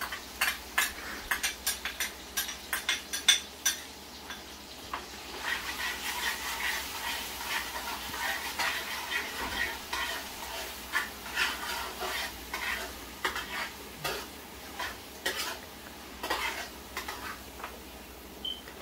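Metal spoon stirring and clinking against a pot while garlic sizzles in hot oil. The sizzle grows fuller about five seconds in.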